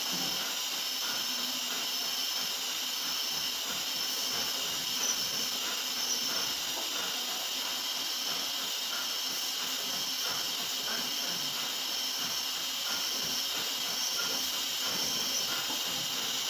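CNC vertical machining center spot-drilling holes in a metal plate, giving a steady high hiss, with a couple of faint knocks about five and six seconds in.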